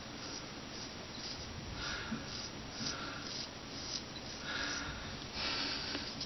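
Straight razor scraping through beard stubble in several short, irregular strokes, the longest near the end.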